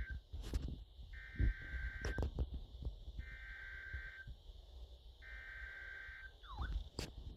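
Emergency Alert System SAME header: three raspy digital data bursts about a second long each, a second apart, with a few faint clicks around them.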